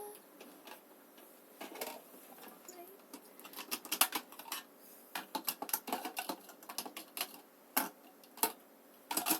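Lipstick and lip gloss tubes being handled and set down, small plastic clicks and taps coming irregularly, in a quick cluster through the middle and a few single ones near the end.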